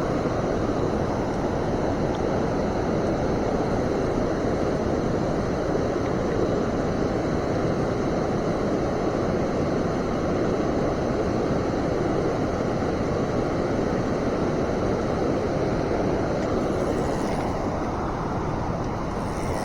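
Flowing river water rushing at a steady, even level.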